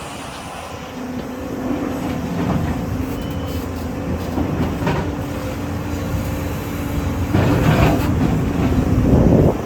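JCB 245 HD LR long-reach excavator's diesel engine running steadily under load, with its hydraulics working. Near the end it gets louder in two rough, grating stretches.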